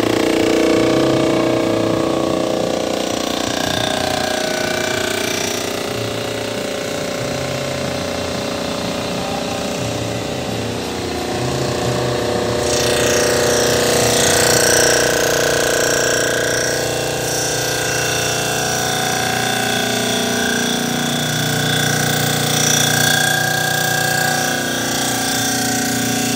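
Surfacing machine's rotating cutter head decking a cast-iron small block Chevy engine block, a steady machining noise with sustained whining tones. The sound shifts about halfway through, with more high ringing. A few thou is being cut off the deck because the pistons sat too far down in the bores.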